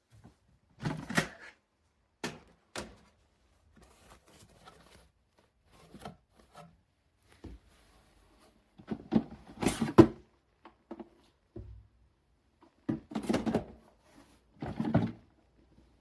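Irregular knocks, thunks and clatter of hard objects being handled, coming in clusters with quieter rustling between them.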